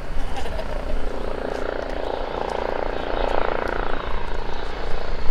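Eurocopter EC135T3 (Airbus H135) helicopter on a low, slow landing approach, its twin Turbomeca Arrius turboshafts and rotors making a steady whining drone over a low rumble.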